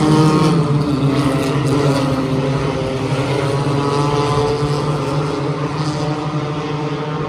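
Several stock car engines running on a short track, their pitch rising and falling slightly as the cars pass, the sound slowly fading over the last few seconds.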